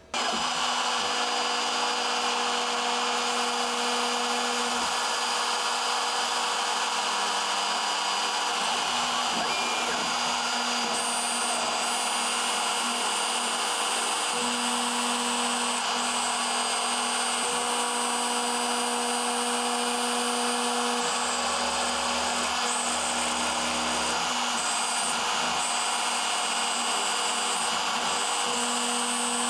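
CNC portal milling machine cutting 4 mm hard PVC sheet: the spindle runs steadily with cutting noise throughout. Its steady tones change every few seconds.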